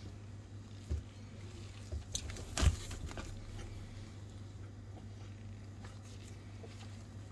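Handling noise of plastic packaging being moved by a gloved hand: a few crackles and knocks, the loudest about two and a half seconds in, over a steady low hum.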